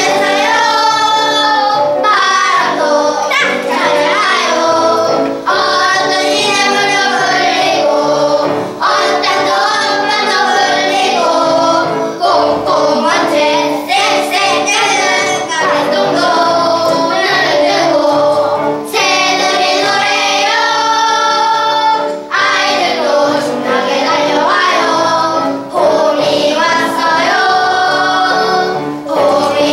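A group of young children singing a song together in phrases of a few seconds, with short breaths between them.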